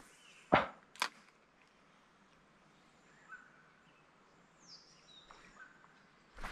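Fishing cast: a lure smacks down onto the water about half a second in, followed by a sharp click of the reel. Faint bird chirps follow.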